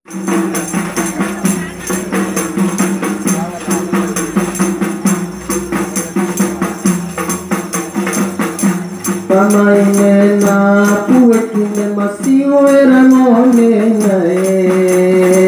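Kasidah frame drums (rebana) beating a quick, even rhythm with jingling, over a steady held tone. About nine seconds in, a male lead voice comes in singing a long, ornamented line over the drums.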